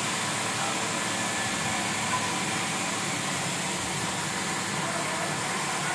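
Steady, even hum and hiss of a reverse-osmosis water treatment plant in operation.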